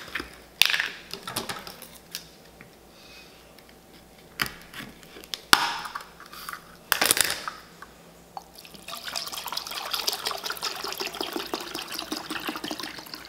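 A few sharp clicks and knocks as a bottle is handled, then, about nine seconds in, isopropyl alcohol pouring steadily from the bottle into a stainless steel bowl for several seconds.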